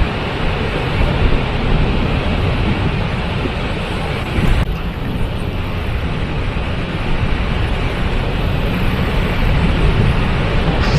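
Waterfall rushing steadily: a loud, continuous roar of falling water, heaviest in the low end.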